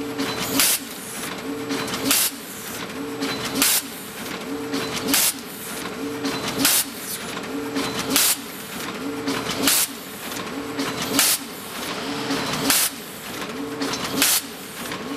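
Horizontal form-fill-seal pouch packaging machine running in steady cycles. A short, loud hissing burst comes about every one and a half seconds over a continuous mechanical whirr with repeating tones.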